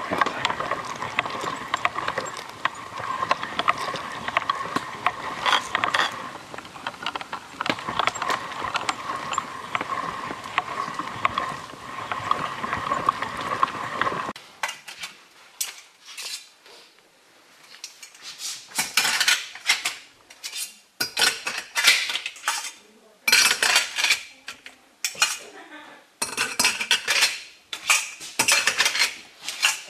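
Hand-cranked metal meat grinder turning steadily as it grinds red berries into a mash, a continuous grinding and rasping. About halfway through it cuts off suddenly, giving way to irregular sharp clinks and scrapes of metal utensils and dishes.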